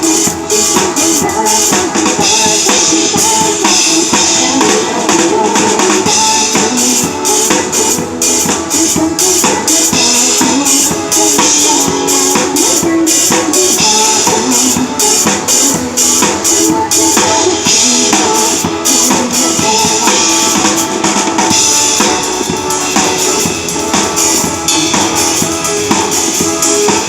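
Drum kit played along with a song: a continuous drum beat over the song's melody and accompaniment.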